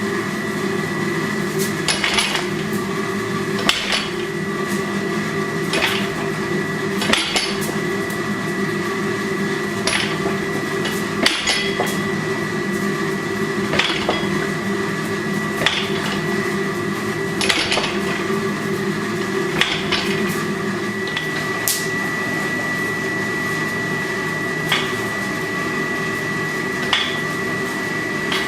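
Hammer strikes on hot steel at the anvil, single blows spaced roughly every two seconds, over a steady hum.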